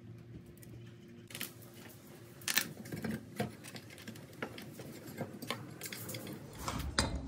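Irregular clicks and light clunks of small metal parts being handled and fitted into a metal headlight housing, starting about a second in.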